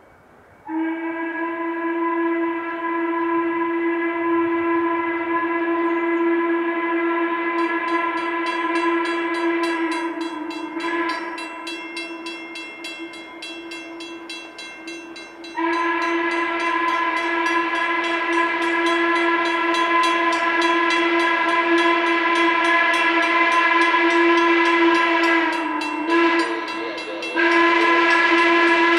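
Steam locomotive whistle of C&O-built 2-6-6-2 Mallet #1309, blown in long steady blasts for a grade crossing as the engine approaches. It is softer for a few seconds in the middle and has a short break near the end before sounding loud again. A crossing bell rings underneath from several seconds in.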